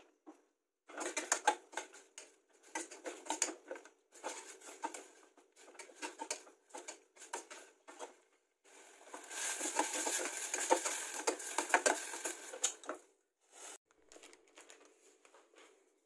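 Metal spoon stirring and scraping pork strips in a stainless steel saucepan on a gas burner, stir-cooking them. It comes in short clattering bouts, with a longer, busier stretch in the second half.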